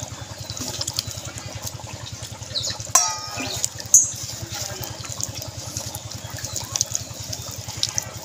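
An engine idling steadily close by, a low even thrum, under the soft wet squelch of gram-flour batter being mixed by hand in a steel bowl. Two sharp clicks stand out about three and four seconds in.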